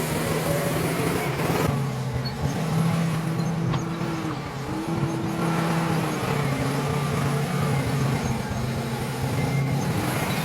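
Bulldozer's diesel engine running steadily, its note dipping and picking up again a few times as it works.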